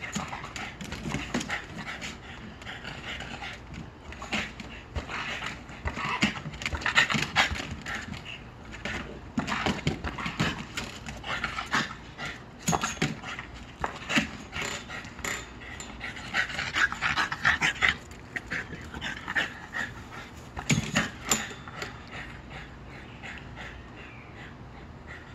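A small short-muzzled dog panting hard as it plays, with many short knocks and clatters scattered through as it jumps at the tetherball and its plastic pole base.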